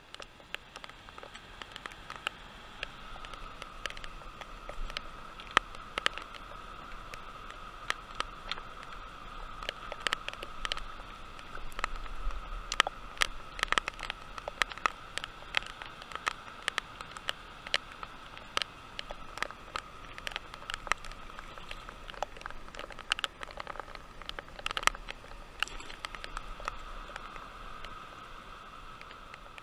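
Steady rush of water pouring over a low river dam, with frequent small clicks and taps of fishing gear being handled close by.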